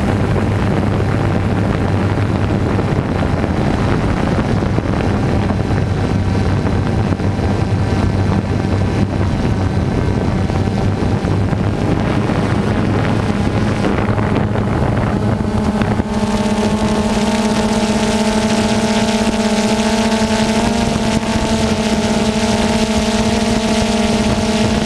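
DJI Phantom 2 quadcopter's motors and propellers humming steadily, picked up by its onboard GoPro, with wind rushing over the microphone. About two-thirds of the way through, the hum steps up in pitch as the quadcopter climbs.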